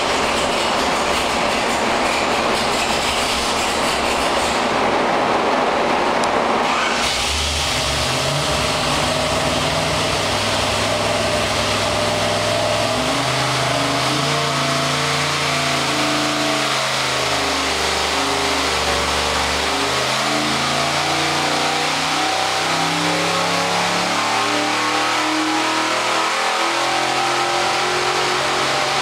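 Chevrolet big-block 468 V8 running on an engine dyno, heard through the dyno cell's window. It runs hard at high revs, then about seven seconds in drops back to a lower speed and carries on with its pitch stepping up and down.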